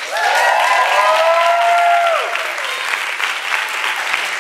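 Audience applauding a winner's name being called. For the first two to three seconds, a few voices cheer over the clapping in long held calls that rise and then fall.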